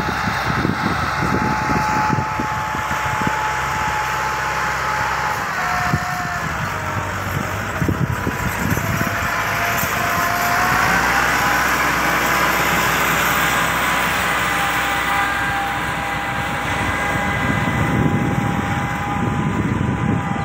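Massey Ferguson tractor's diesel engine running steadily under load while pulling a disc harrow through dry soil. It grows louder as it passes close by about halfway through, its pitch dipping and then rising.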